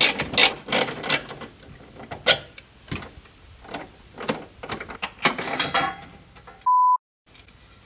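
Ratchet wrench with a socket extension undoing the bolts of an exhaust hanger mount: a run of ratcheting clicks and metal taps, busiest a little past the middle. Near the end a short steady beep tone cuts in over silence.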